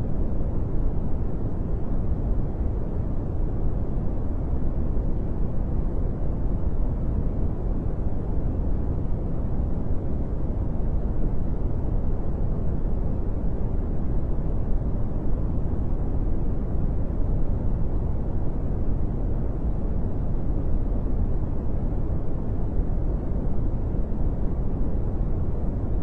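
Brown noise: a steady, deep hiss with most of its weight in the bass and little treble, unchanging throughout.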